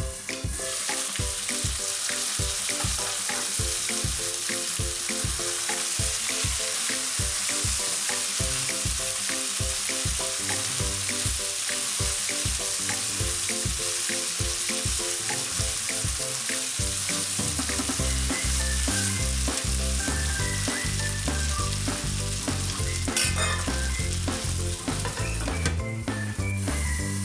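Chicken pieces frying in oil in a kadhai, a steady sizzle, with background music with a steady beat underneath that grows fuller in the bass about two-thirds of the way in.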